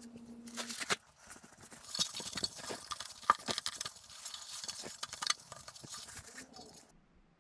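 A paper towel rubbing and wiping across a freshly polished silver plate, dry scratchy swishes with small clicks, buffing the surface. It stops about six and a half seconds in.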